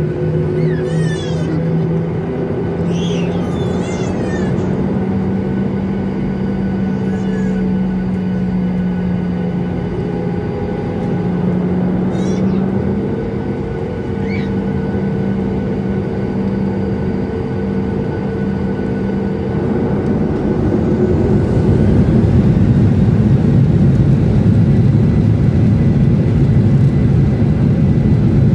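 Jet airliner's engines heard from inside the cabin, a steady hum with a whine above it; about twenty seconds in the engines spool up and the noise grows louder as the takeoff roll begins. A few short high squeaks sound in the first five seconds and again around twelve and fourteen seconds in.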